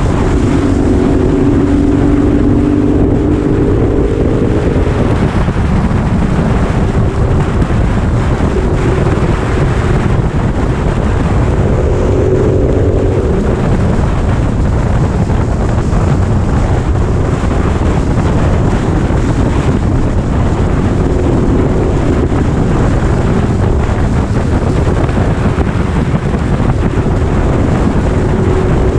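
Motorcycle being ridden, heavy wind noise on the microphone over the engine, whose note shifts in pitch a few times.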